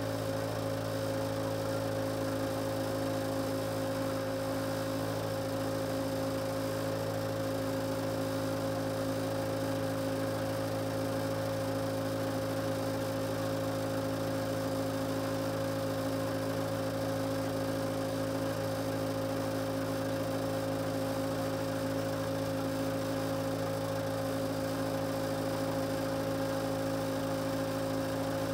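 Case 580C backhoe engine idling steadily, a constant low drone heard from inside the cab.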